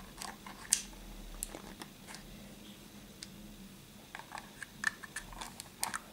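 Small plastic clicks and taps as the painted plastic body of a toy RC buggy is handled and pressed into place on its chassis: scattered single clicks, the loudest about a second in, then a quick run of them near the end.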